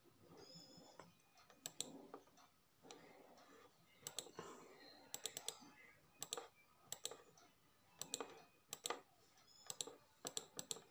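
Faint, irregular clicks of keys being tapped on a smartphone's touchscreen keypad as a mobile number is typed in, some coming in quick runs of two or three.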